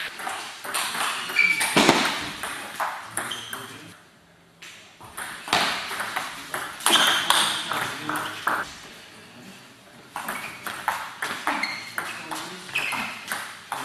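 Table tennis ball clicking back and forth off rubber paddles and the table in quick rallies, with short high squeaks between hits and a brief lull about four seconds in.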